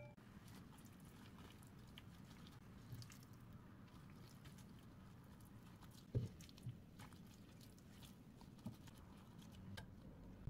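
Faint, soft handling sounds of raw salmon slices being picked off a wooden cutting board and laid into a glass container by gloved hands: scattered small wet clicks and taps, with a soft thump about six seconds in.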